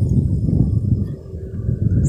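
Wind buffeting the microphone: a loud, uneven low rumble that rises and falls in gusts.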